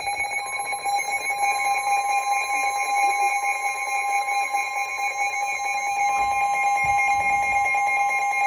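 Weather radio emergency alert tone: a loud, steady alarm tone, with a second tone joining about half a second in, heralding a new severe thunderstorm warning.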